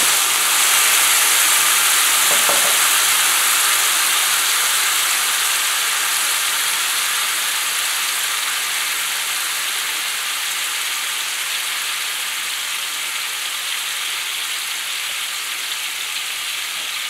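Cod fillet frying in a pan of oil, butter and white wine just poured in to deglaze, a steady sizzle that slowly dies down.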